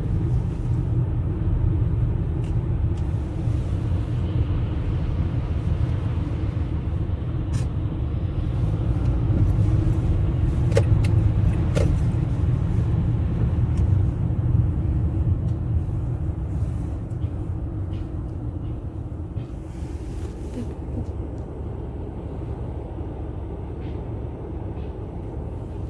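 Inside a moving car: a steady low rumble of engine and road noise, with a few faint clicks near the middle and the rumble growing quieter over the last third.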